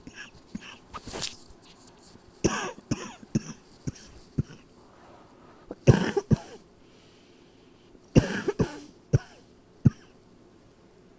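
A person's persistent night-time cough: three short fits of several coughs each, with single coughs between them.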